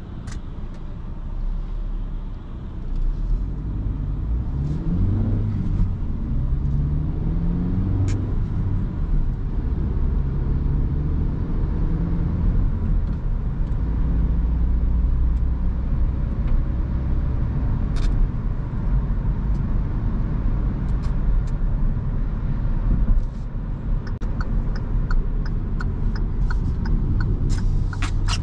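In-cabin sound of a Kia Rio's 1.2-litre four-cylinder petrol engine and tyres on the road in city driving, the engine note rising as the car accelerates about three to six seconds in. Near the end the turn-signal indicator ticks about twice a second as the car turns.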